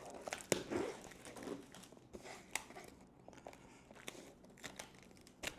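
Blind-box packaging crinkling and rustling as it is handled, with scattered small clicks and taps.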